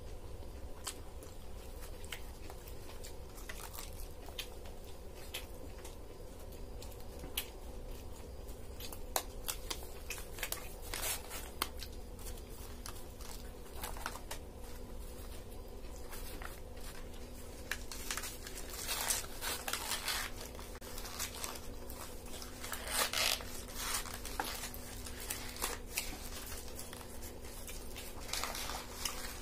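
Paper wrappers around egg rolls crinkling and tearing as they are peeled back, in scattered crackles that come thickest about two-thirds of the way through, with chewing in between.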